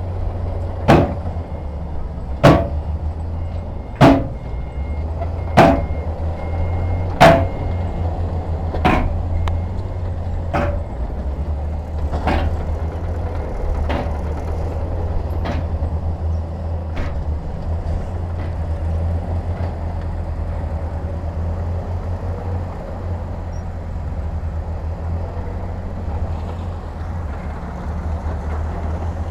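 Heavy diesel engine of earthmoving equipment running steadily, with a series of sharp knocks about every one and a half seconds that fade away and stop about halfway through.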